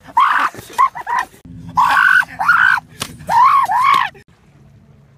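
Teenage boys screaming and yelling battle cries in a mock sword fight: four loud shouts that rise and fall in pitch, with a single sharp knock in the middle, stopping a little after four seconds in.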